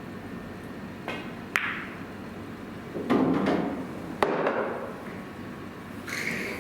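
Pool balls clicking: a cue striking the cue ball and balls knocking together, a few sharp clicks and knocks a second or two apart.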